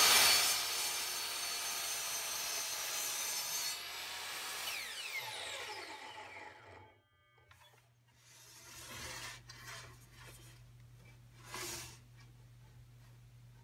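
Electric miter saw cutting a 45-degree miter through an oak board. After about four seconds the motor is let go and the blade winds down with a falling whine, stopping about seven seconds in. A few brief rubbing sounds follow as the board is handled on the wooden bench.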